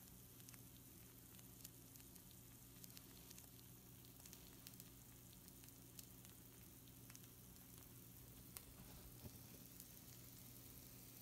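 Freshly baked pizza rolls sizzling faintly on a hot baking sheet, with scattered small crackles and pops over a steady low hum.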